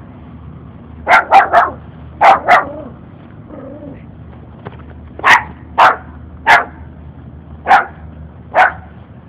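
A puppy barking in sharp yaps: a quick run of three, then two, and after a short pause five single barks about a second apart.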